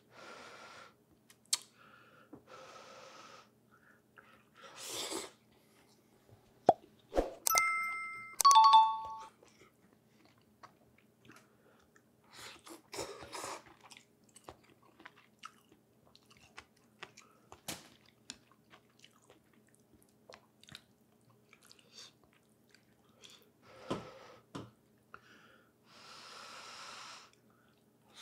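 Close-up eating sounds of a person eating pho: soft chewing and mouth clicks, with several noisy slurps about a second long. A few loud, short ringing clinks come about seven to nine seconds in, and they are the loudest sounds.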